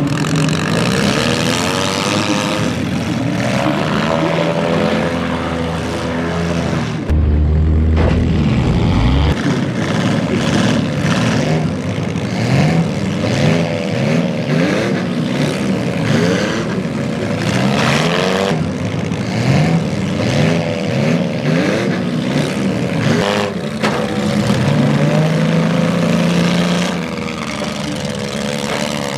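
Several front-wheel-drive demolition derby cars' engines revving hard and rising and falling in pitch all at once. Short bangs break in here and there, and a deep rumble comes in around seven seconds in and lasts about two seconds.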